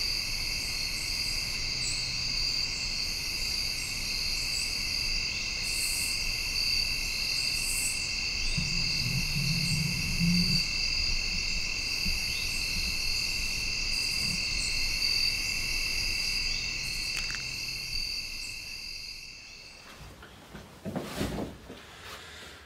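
Steady high-pitched trilling of a chorus of crickets and other insects in woodland at dusk. There is a short low sound about nine seconds in. The chorus cuts off near the end.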